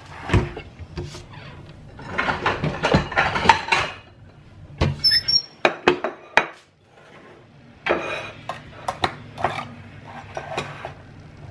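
Kitchen clatter: knocks and clinks as a plate and an opened metal can are set down and handled on the countertop, with a short high squeak about five seconds in.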